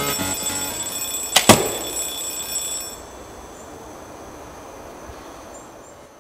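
Alarm clock ringing, with a single sharp snap about one and a half seconds in as a compound bow is shot. The ringing stops about three seconds in.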